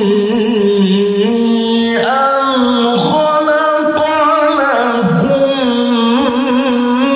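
A man's solo melodic Quran recitation (tilawah) into a hand-held microphone: long held notes with wavering ornaments. The voice climbs to a higher held pitch about two seconds in and comes back down around five seconds.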